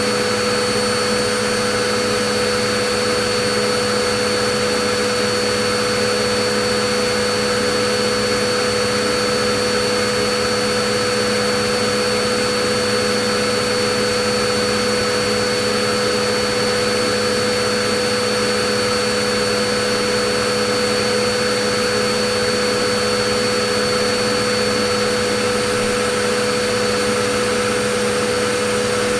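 Vacuum cleaner motor running steadily, a constant rushing whir with a steady hum and whine.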